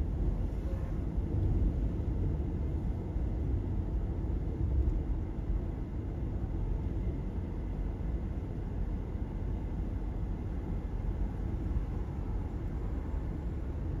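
Steady low rumble of tyre and road noise from a car cruising along a highway, heard from inside the car.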